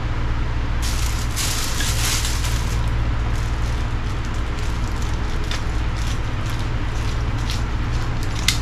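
Crackling, rustling handling noise with scattered clicks, starting about a second in, over a steady low hum; one sharper click near the end.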